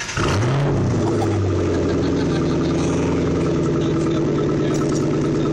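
Roush 427R Mustang's V8 starting up through its exhaust: it catches suddenly and loudly with a brief flare in revs, then settles within about a second into a steady idle.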